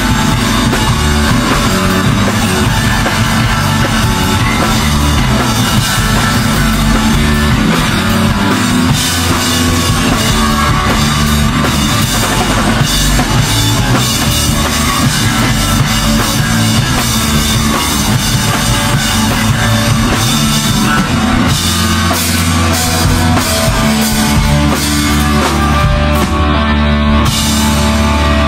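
Punk band playing live at full volume: fast, loud drum kit with cymbals, distorted electric guitar and bass. Near the end the cymbals fall away, leaving mostly guitar and bass.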